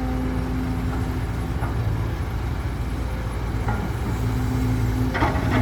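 Heavy diesel truck engine running steadily, with a short burst of hiss about five seconds in.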